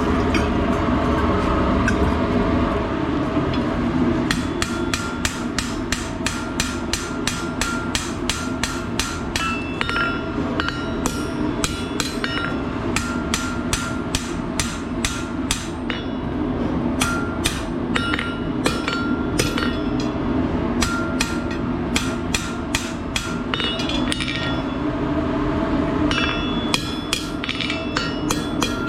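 Hand hammer striking the end of a hot steel bar on an anvil, upsetting it to make the end wider: steady runs of about two to three ringing blows a second, with two short pauses. A steady low rumble runs underneath.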